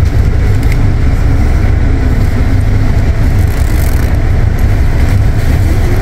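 Steady, loud low rumble of a coach bus's engine and running gear, heard from inside the passenger cabin.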